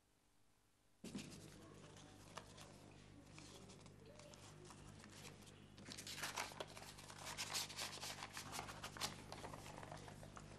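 Faint rustling and scattered light clicks over a low steady hum, starting after about a second of dead silence and growing busier from about six seconds in.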